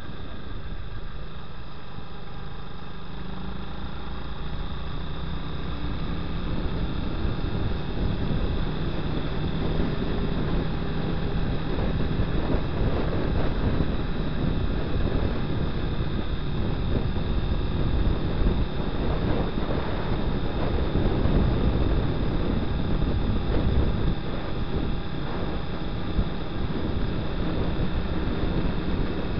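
Honda Twister 250's single-cylinder engine running at road speed, mixed with wind rushing over the microphone. It grows louder about five or six seconds in and then holds steady.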